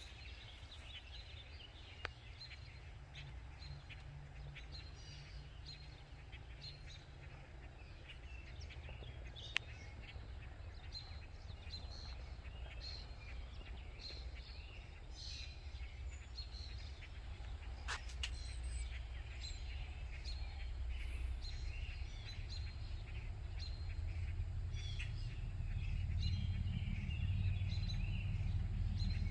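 Songbirds chirping in short, scattered calls over a low rumble that grows louder over the last few seconds.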